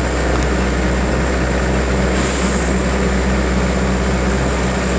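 Steady engine and road noise of a moving vehicle, heard from inside it, with a steady high whine above it.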